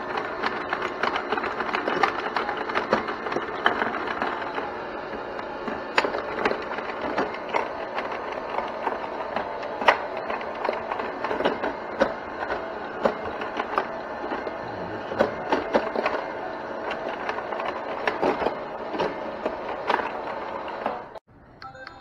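Electronic tabletop pinball toy in play: its electronic game sounds run steadily under a rapid clatter of plastic clicks from the flippers and the ball striking bumpers and rails. It cuts off abruptly near the end.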